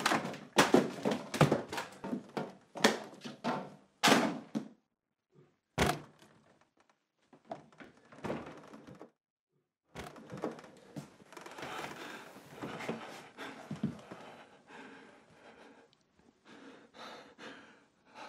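Plastic food tubs, mushrooms and grapes falling out of a fridge and hitting the floor in a quick run of thuds and clatters, with one more thud a couple of seconds later. After a pause come softer knocks and rustling.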